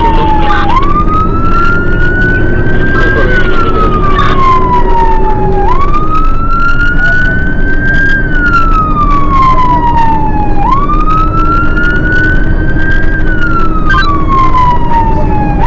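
Fire siren wailing in a slow, repeating rise and fall, about one cycle every five seconds: a quick climb, a gradual rise, then a long slide down. It sounds over a steady low rumble.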